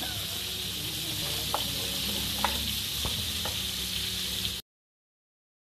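Burger patties sizzling and frying in two pans, a steady hiss with a few light clicks. The sound cuts off suddenly to dead silence about four and a half seconds in.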